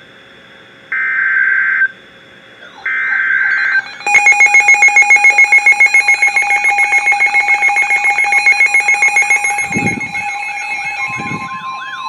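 Emergency Alert System header tones: two short, harsh, buzzing data bursts about a second apart. About four seconds in, a loud, rapidly pulsing high-pitched alert tone starts, with warbling, siren-like tones rising and falling over it. Near the end a steady single tone takes over.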